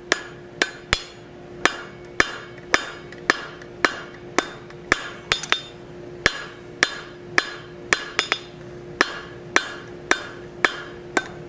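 Hand hammer striking a red-hot steel bar over the anvil horn, drawing out the stock. The blows come in a steady rhythm of about two a second, each with a short metallic ring, over a steady hum.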